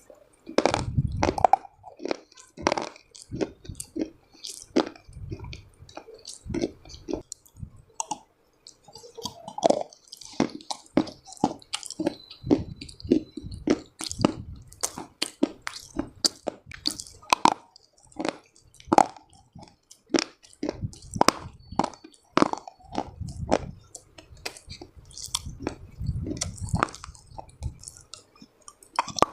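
Someone chewing and crunching dry, earthy chalk-like clay, with a dense run of irregular sharp crackles and heavier bites every few seconds.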